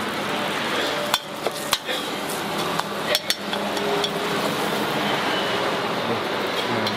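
A metal ladle clanking and scraping in a charcoal-fired wok as Javanese noodles (bakmi jawa) are stir-fried, with a steady frying hiss underneath. There are several sharp clanks between about one and three and a half seconds in.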